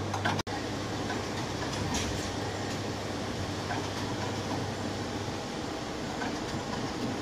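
Steady machinery noise of an automated inspection machine and its factory surroundings, with a few faint scattered clicks. A low steady hum cuts off at a brief dropout about half a second in.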